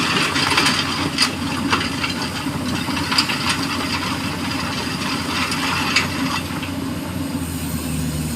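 Hydraulic excavator's diesel engine running steadily, with a handful of sharp knocks and clatters from stones being loaded into a dump truck.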